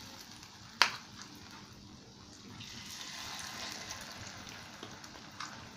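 Bajra appe batter sizzling in hot oil in the cups of an appe pan, a steady hiss, with one sharp clink a little under a second in.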